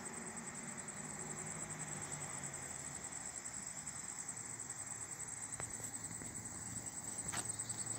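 Faint rustling in dry leaf litter from a small unseen animal moving about, which the listener takes for a weasel or a mouse, over a steady high-pitched insect-like trill. A single faint tick about five and a half seconds in.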